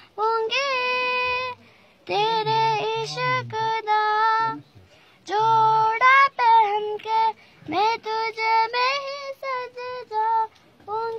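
A young child singing a song unaccompanied in a high voice, in short phrases with brief breaks between them.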